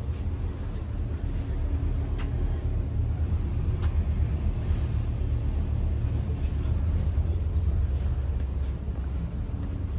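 A passenger ferry's engines heard inside the cabin as a steady low rumble and hum while under way.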